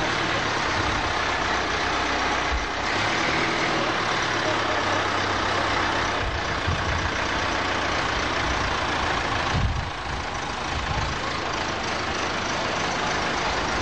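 Diesel engine of a tractor-loader running steadily, with a dip in level about ten seconds in.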